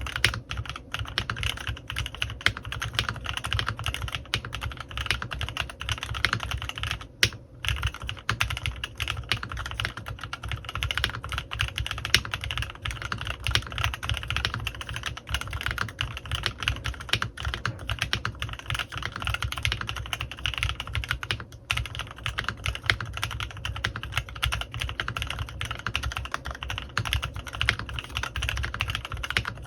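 Continuous fast typing on a CannonKeys Rekt1800 custom mechanical keyboard with lubed Kailh x Swagkeys Lavender prototype switches and PBT keycaps, a dense stream of key clicks with a brief pause about seven seconds in.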